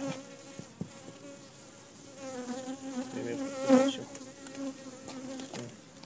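Honeybees buzzing close by, a steady buzz that wavers in pitch, swells through the middle and eases off near the end, with a few faint clicks.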